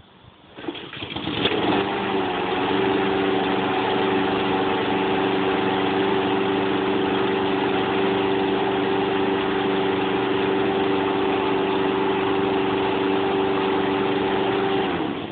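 Push mower's small engine cold-started, catching about a second and a half in and running steadily, then shut off near the end.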